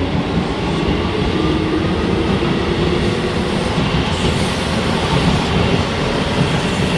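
Hokuso Railway 7300-series electric train, set 7308, accelerating away from the station. Its motors give a whine that rises in pitch over the first few seconds, above a steady rumble of wheels on rails as the cars pass close by.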